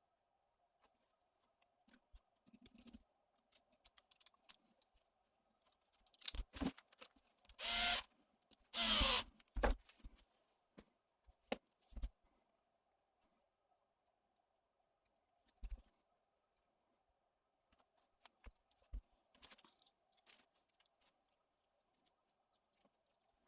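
Hand tools and small RC-car drivetrain parts being handled on a workbench: scattered light clicks and taps, with two louder half-second whirring bursts about halfway through.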